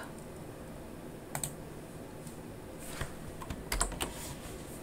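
A handful of isolated, light clicks from a computer keyboard and mouse, spread a second or so apart, over faint steady room noise.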